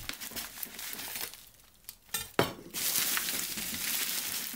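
Plastic bubble mailer rustling and crinkling as a kitchen knife slits it and it is torn open. It goes quiet briefly, then there are two sharp clicks and a longer, louder stretch of crinkling plastic as the box is pulled out.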